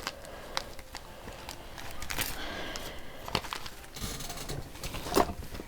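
Soft rustling of hair and hands being worked through it, with a few light clicks scattered through, as the hair is sectioned off.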